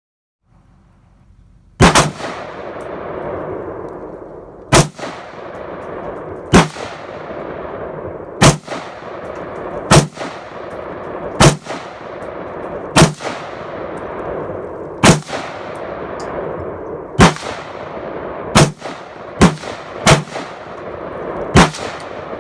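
AR-15 rifle firing 5.56 mm rounds: about thirteen single shots, mostly one and a half to two seconds apart and coming quicker near the end, each followed by a long rolling echo.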